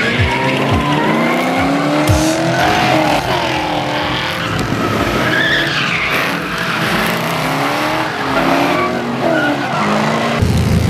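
Drift cars' engines revving up and down over and over, with tyres skidding and squealing. A few deep thumps come in the first two seconds, and music starts loudly just before the end.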